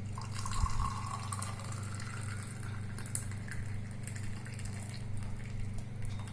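Hot herbal leaf decoction (kashayam) being poured through a strainer into a vessel, the liquid splashing and trickling, over a steady low hum.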